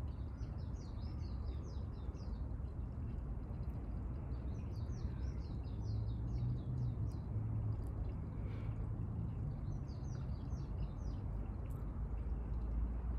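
Small birds chirping in three quick runs of rapid, high, short notes over a steady low rumble.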